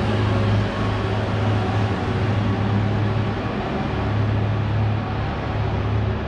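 Downtown street traffic noise with a steady low hum underneath.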